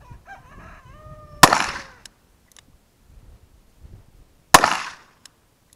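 A .44 Special revolver fired twice, about three seconds apart, each shot a sharp crack with a short tail.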